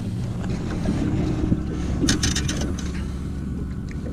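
A boat's motor humming steadily, with wind on the microphone. About two seconds in comes a quick run of sharp clicks and rattles.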